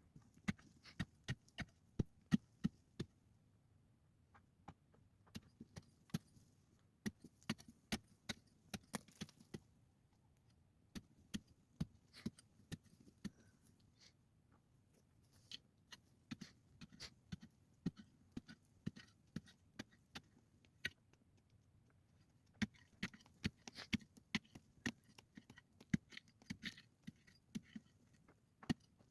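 Rapid, irregular knocking and thudding from hand-tool work, coming in runs separated by short pauses.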